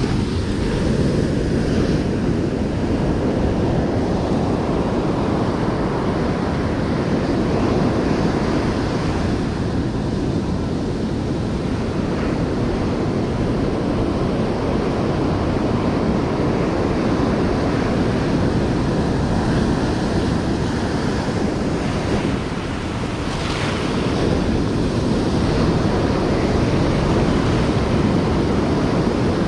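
Rough ocean surf breaking and washing up a sandy beach in a steady rush, with wind buffeting the microphone.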